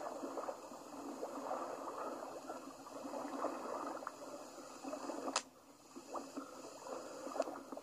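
Faint running water of a stream carrying ice chunks: a steady rushing trickle with small crackles. A sharp click comes about five seconds in, after which the sound briefly drops away before the water returns.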